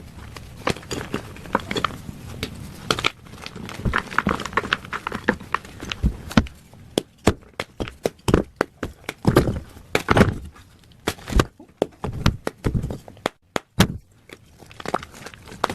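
Plain gym chalk being crushed and crumbled by hand: a run of irregular, crisp crunches and crackles, easing into a brief lull near the end.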